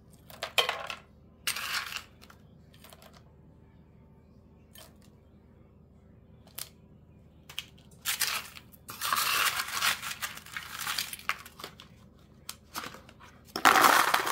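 A metal spoon scooping candied pecans off a sugar-dusted metal sheet pan and dropping them into a plastic container: two short clatters in the first couple of seconds, a quiet stretch, then repeated scraping and clattering from about eight seconds in, loudest near the end.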